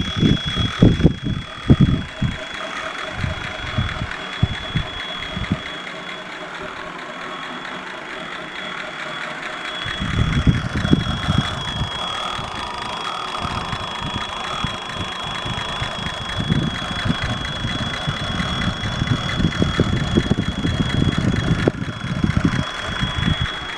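AMC 304 V8 idling with a steady high-pitched whistle from its Howell throttle-body injection. The owner takes the whistle for a vacuum leak, though he has been told these units are noisy. The low engine rumble runs uneven and grows louder about ten seconds in.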